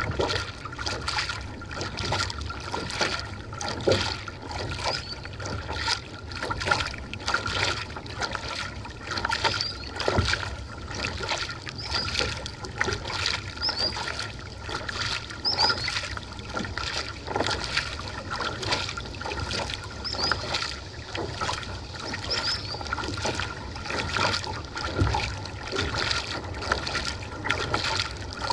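Kayak being paddled: paddle blades dipping and splashing at an irregular pace, with water trickling and lapping along the hull.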